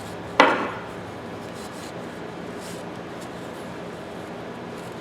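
A single knock of a tool or small object set down on a workbench about half a second in, then a steady low hum of workshop background.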